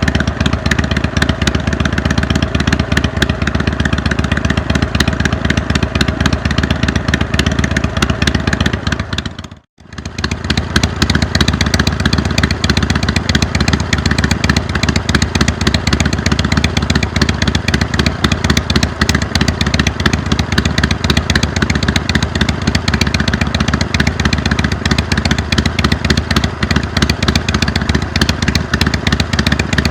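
Harley-Davidson Iron 883's air-cooled V-twin running steadily through a Jekill & Hyde flap-valve exhaust. The sound drops out for a moment about ten seconds in, then carries on unchanged.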